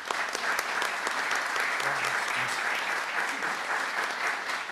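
Audience applauding: many hands clapping at once in a steady, even patter.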